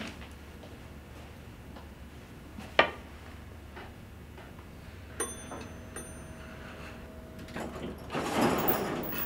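An elevator arriving: a sharp click about three seconds in, a brief steady tone starting a little after five seconds, then a swelling rush of noise near the end as the car comes and its doors begin to slide open.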